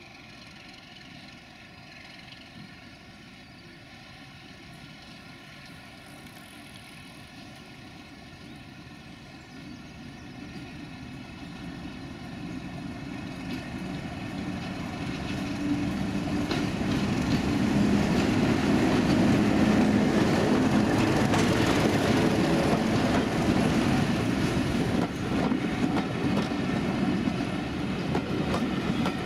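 British Rail Class 31 diesel locomotive with its English Electric V12 engine running, approaching from a distance and growing steadily louder until it is close about two-thirds of the way through, then staying loud as it passes.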